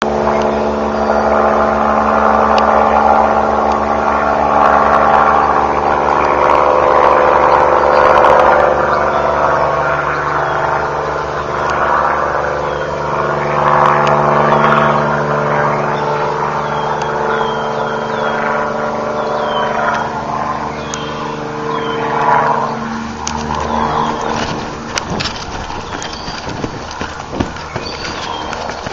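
Spray helicopter flying over, a steady engine and rotor drone with several held tones that swells and fades, then dies away about 23 seconds in. Near the end, scattered knocks and rustles.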